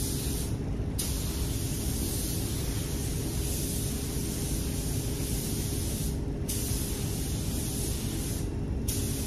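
Tuba TH101AG gravity-feed paint spray gun with a 1.4 mm fluid tip, hissing steadily as it sprays paint onto a car bumper. The hiss stops briefly three times, about half a second in, about six seconds in and near the end, between passes. A steady low rumble runs underneath.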